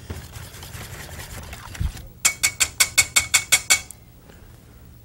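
A wire whisk beating chickpea-flour pakora batter in a bowl: a soft swishing at first, then, about two seconds in, a quick, even run of about ten clicks, some six a second, as the whisk strikes the bowl.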